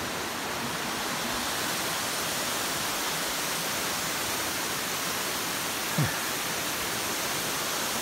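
Tall, narrow waterfall pouring onto rocks: a steady rushing hiss of falling water. About six seconds in there is one short low sound that falls in pitch.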